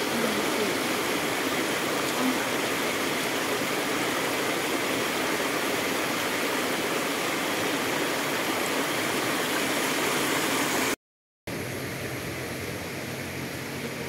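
Stream water running steadily over rocks and a small cascade. The sound cuts out for a moment near the end and comes back a little softer.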